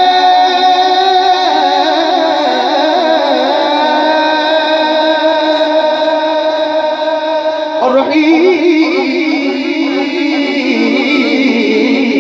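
A man singing a naat in long, held, wavering notes. A new phrase comes in abruptly about eight seconds in.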